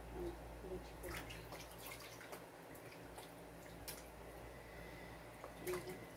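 Water dripping and splashing lightly in a plastic basin as a foot is washed by hand, with a few small irregular splashes and drips.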